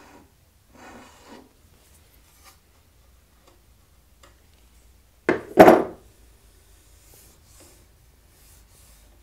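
Spokeshave shaving wood from a guitar neck in a short stroke near the start, then a loud double clunk about five seconds in as the metal spokeshave is set down on the wooden workbench. Faint rubbing of fingers along the wood comes in between.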